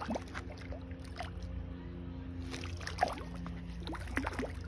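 A steady low motor hum, with brief splashes from a hooked bluefish thrashing at the surface and a sharp knock about three seconds in.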